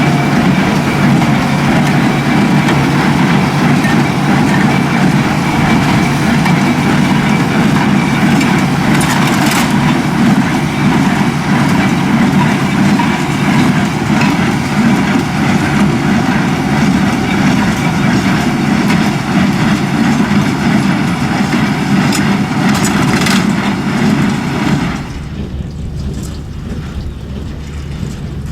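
Heavy farm machinery running: a diesel engine with mechanical clatter and a few sharp knocks. About 25 seconds in, most of the noise cuts off suddenly, leaving a quieter low engine drone.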